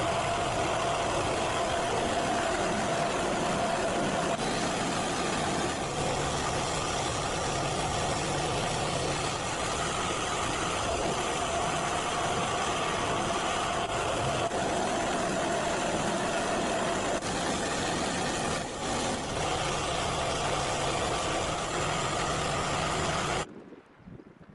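The small engine of a homemade bandsaw mill running steadily, with a steady whine over the engine, then cutting off suddenly near the end.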